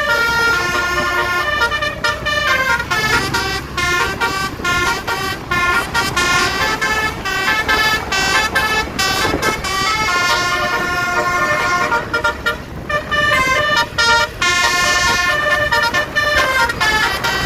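Basuri musical air horn on a tour bus playing a melody of horn notes that step quickly up and down in pitch, with a couple of short breaks.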